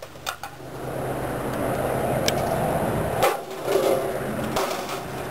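Computer parts thrown down onto a concrete slab: several hard clattering impacts, the loudest a little past three seconds in, over a steady background rush.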